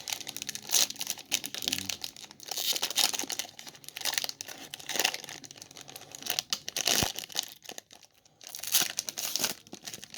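Wrapping of a sealed trading-card pack being torn open and crumpled by hand: irregular crinkling and tearing throughout.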